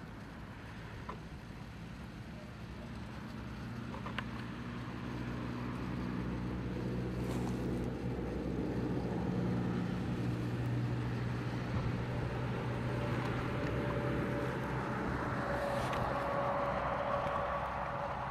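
A motor vehicle's engine hum, low and steady, growing louder over several seconds, with a higher steady tone joining in for the last few seconds.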